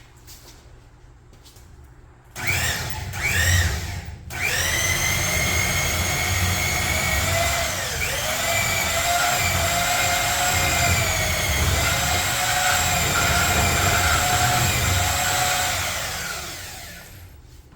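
Electric power-tool motor spinning up with a rising whine, cutting out for a moment, then running steadily for about twelve seconds before winding down near the end. Its pitch sags now and then, deepest about eight seconds in, as if under load.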